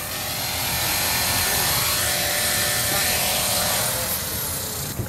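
Electric E-Sky King 2 RC helicopter's rotors and motor running, a steady loud whir with a thin high whine. Near the end there is a knock and the sound begins to die away.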